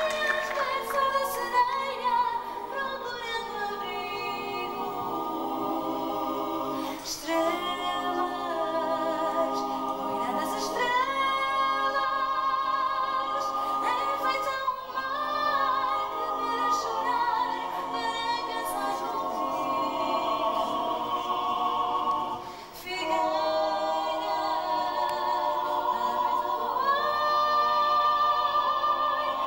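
A stage cast singing together in harmony without instruments, a woman's voice among the voices, in sustained phrases with short breaks between them.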